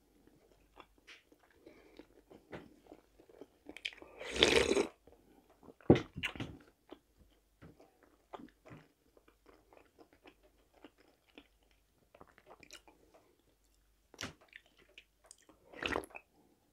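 Close-up chewing of a chicken shawarma wrap: soft, wet mouth clicks and smacks, with a louder noisy burst about four and a half seconds in and a sharper one near six seconds. Near the end comes a brief sip of tea from a glass cup.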